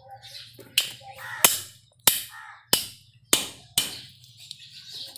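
Heavy cleaver chopping through a large fish into a wooden log chopping block: six sharp blows, about two-thirds of a second apart.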